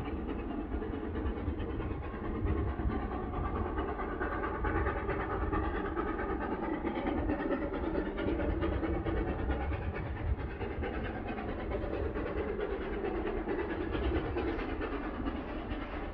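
Steam-hauled train heard in the dark as a steady low rumble, with no separate whistle or chuffs standing out.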